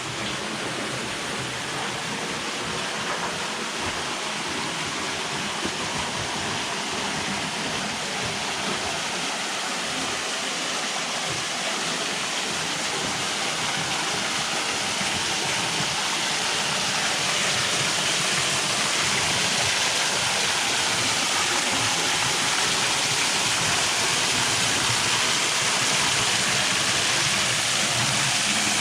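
Waterfall rushing, a steady roar of falling water that grows gradually louder over the second half.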